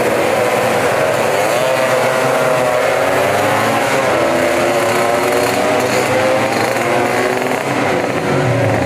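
Several tuned two-stroke scooter engines running hard together, their pitch rising and falling as they rev.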